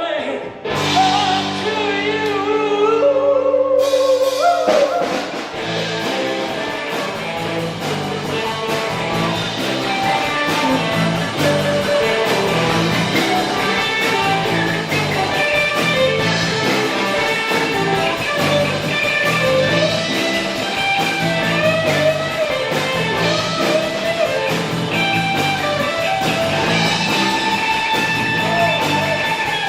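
Live rock band playing: held notes ring for the first few seconds, then drums and bass pick up a steady beat under the guitar.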